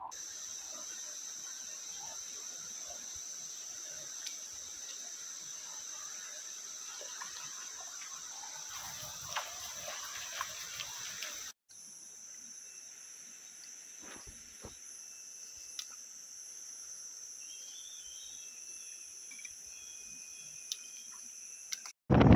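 Insects chirring in a steady, unbroken high-pitched drone, broken off briefly about halfway and then going on a little lower in pitch.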